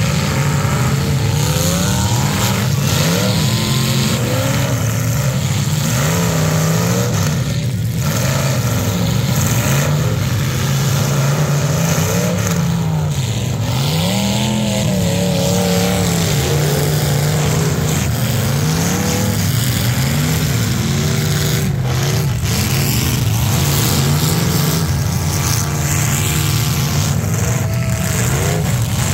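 Demolition derby cars' engines revving hard, several at once, their pitches climbing and dropping over one another, with a few sharp knocks of impact.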